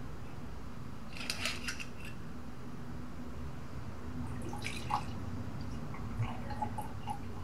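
A wine bottle being opened with a quick run of small crackling clicks about a second in, then wine poured from the bottle into a wine glass, with short liquid glugs and drips in the second half.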